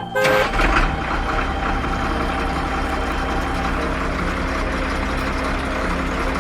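Heavy vehicle engine running steadily with a low rumble, after a few short musical notes at the very start.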